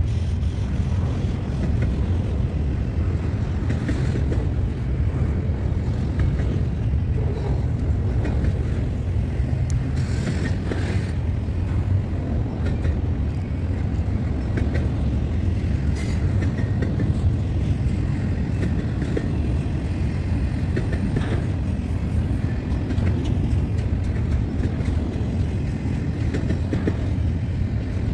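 A train rolling past: a steady, continuous low rumble of wheels on rail, with a few faint clicks along the way.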